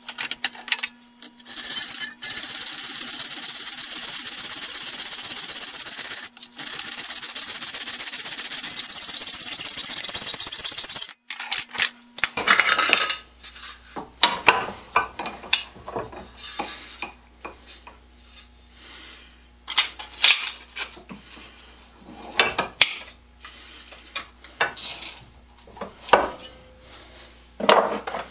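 Fast-forwarded bench work on an aluminium strip held in a bench vise: a steady file-like scraping for about nine seconds, broken briefly once. Then come scattered clinks and knocks as the strip and tools are handled.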